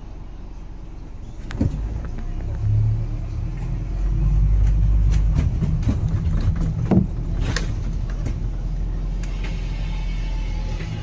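Steady low rumble of a motor vehicle running, with scattered clicks and knocks and a brief hiss about seven and a half seconds in.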